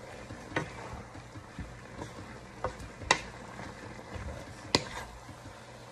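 Wooden spatula stirring and scraping stir-fried noodles in a wok over a steady low sizzle, with several sharp knocks of the spatula against the pan about a second apart.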